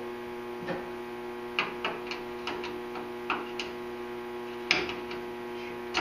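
Thin metal tool scraping and clicking inside a seat-belt anchor hole in a car body, picking out weld slag, in about ten short, irregular strokes, the loudest a little before the end. A steady electrical hum runs underneath.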